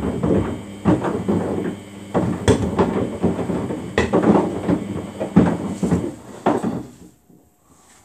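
Samsung front-loading washing machine's drum tumbling, with the loose plastic detergent drawer inside knocking and clattering against the drum over and over, over a low motor hum and water sloshing. The drum stops about seven seconds in and the knocking ends.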